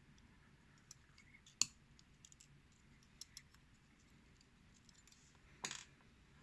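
Faint, scattered clicks and taps of small metal lock parts and tools being handled while a pin tumbler lock is taken apart, with a sharper click about one and a half seconds in and another near the end.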